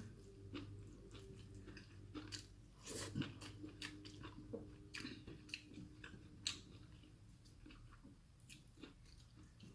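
A person chewing and eating quietly, with many small soft clicks and crunches scattered irregularly.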